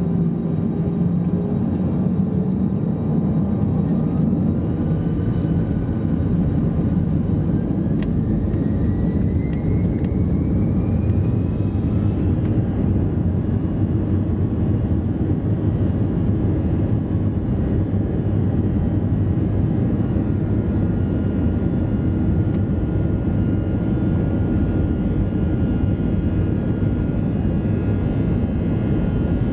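Airbus A321's jet engines spooling up to takeoff thrust: a whine rises in pitch over several seconds a few seconds in, over a loud, steady rumble of the takeoff run, then settles into a steady high drone.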